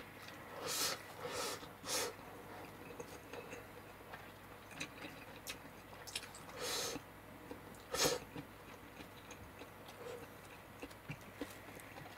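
A person chewing and eating a mouthful of chicken and rice close to the microphone, with a handful of short louder mouth or eating noises, the loudest about eight seconds in.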